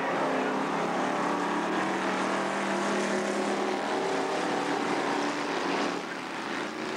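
Engines of several sedan race cars running hard together around a dirt speedway oval, a steady mixed engine drone that dips slightly near the end.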